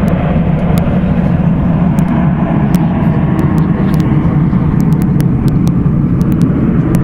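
Loud, steady engine noise from a jet aircraft flying past.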